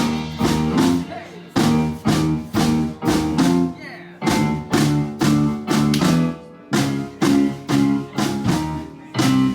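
A live band playing an instrumental passage: full chords, with guitar, struck in a steady rhythm of about two to three strokes a second.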